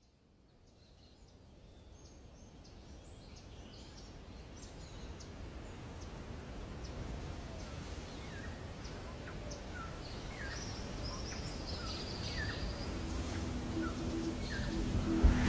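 Birds chirping in many short, separate calls over a low, steady rumble. The sound fades in from silence and grows gradually louder throughout, and a rising whoosh begins right at the end.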